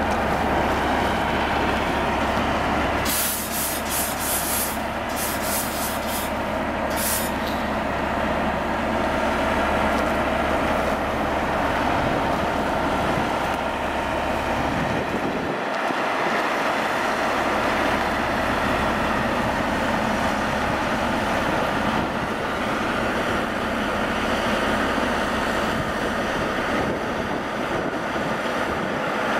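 Diesel engine of an NYC Subway track geometry car (TGC4) running steadily as the car approaches, with several short bursts of air hissing from its brakes between about three and seven seconds in.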